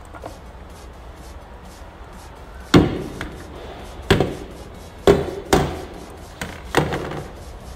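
A series of about seven sharp knocks at uneven spacing, starting a few seconds in and ending near the end, each with a short ringing tail.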